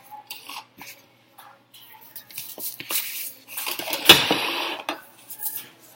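Handling noise from a laminated card and a plastic ruler being moved about on paper: a few light clicks and taps, then a longer rubbing, sliding sound past the middle with a sharp knock in it.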